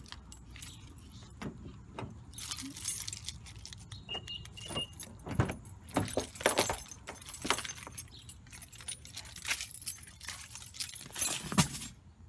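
Irregular clicks, knocks and rustling of a car's rear door being opened and a toddler being settled into his car seat.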